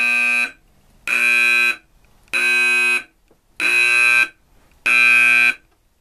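Edwards Adaptahorn fire alarm horn sounding in alarm after a manual pull station was pulled: loud blasts of one steady pitch, each under a second long, five of them evenly spaced about 1.3 seconds apart.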